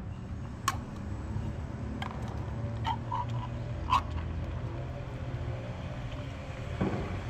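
Sharp clicks and taps from a tin of wet cat food being handled and scraped out onto a plastic plate, the loudest about four seconds in, with a few short cat mews just before it, over a steady low street rumble.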